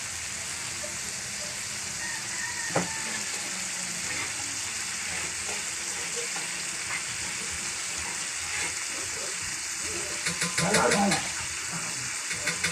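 Sliced carrots, kikiam and meat sizzling steadily as they stir-fry in a metal wok. A single knock of the metal ladle comes about three seconds in, and near the end the ladle scrapes and clicks quickly against the pan.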